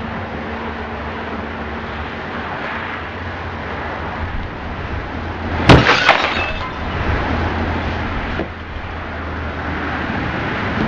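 Steady road traffic noise, then about halfway through a loud car crash: a sharp impact, a second bang close behind with breaking glass, and a clatter that dies away over the next second.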